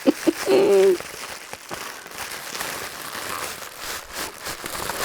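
Packaging crinkling and rustling as hands unpack a freshly opened parcel, an irregular run of soft crackles.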